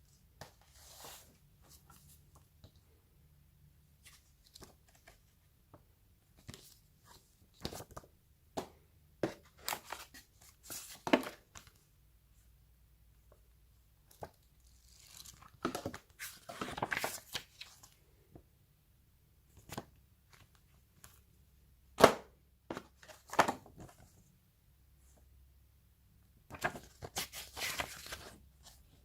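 Packaging being handled for a phone unboxing: paper and plastic tearing and crinkling in irregular short bursts, with scattered clicks and knocks, the sharpest about two-thirds of the way through.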